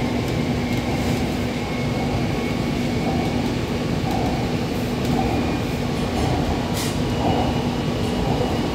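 Kochi Metro third-rail electric train running at speed on elevated track, heard from inside the carriage: a steady running rumble with a constant low hum.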